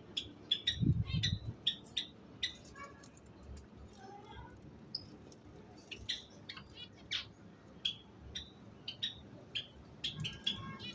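Budgerigars chirping: a quick run of short, sharp, high chirps repeated through, with a few softer warbled glides mixed in.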